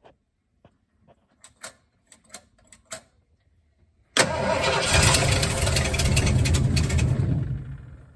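A few faint clicks, then about four seconds in the truck's freshly reinstalled carbureted engine starts suddenly, runs for about three seconds and dies away: it catches but does not keep running.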